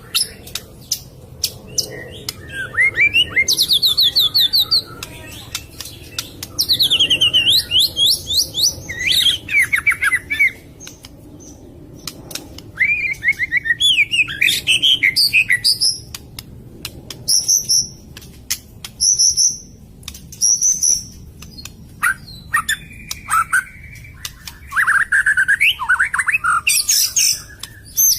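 White-rumped shama (murai batu) singing a varied song of whistled, sweeping phrases and fast trills mixed with sharp clicking notes, in bursts with short pauses between them.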